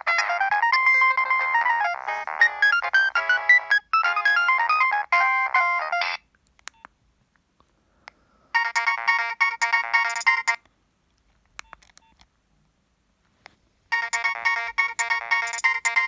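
Nokia 7250i mobile phone playing its preloaded ringtones through its built-in speaker. A melodic ringtone plays and stops about six seconds in. After a pause, a different, busier ringtone phrase sounds for about two seconds, and repeats after a further three-second gap near the end.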